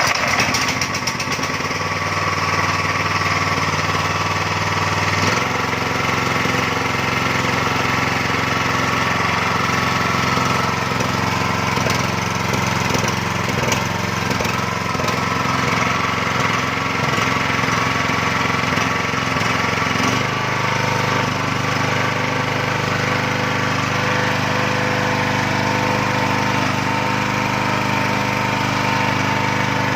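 Motoyama 9 HP single-cylinder gasoline engine running steadily on test. Its running note changes about five seconds in and again around twenty seconds in, as with throttle changes.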